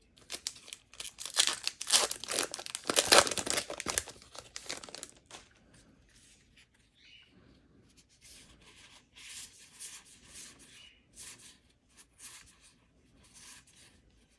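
Foil booster pack wrapper crinkling and tearing open for about the first five seconds, then quieter rustling and flicking as the trading cards from the pack are slid through one by one.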